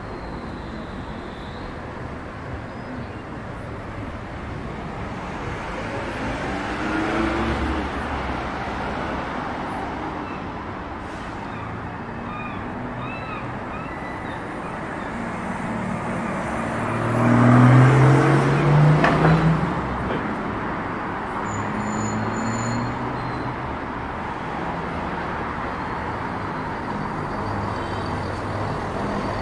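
City road traffic: cars running past on the street alongside. About 17 seconds in, one vehicle accelerates past with its engine pitch rising, the loudest moment.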